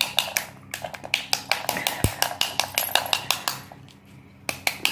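Rapid taps of a knife on the skin of a halved pomegranate, about five a second, knocking the seeds out into a steel-lined bowl. The tapping stops for about a second near the end, then starts again.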